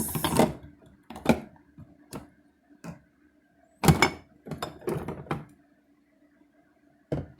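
Condiment bottles and jars knocking and clunking as they are moved and set down on refrigerator shelves: about eight separate clunks, the loudest about four seconds in, with a cluster just after it. A faint steady hum sits beneath them.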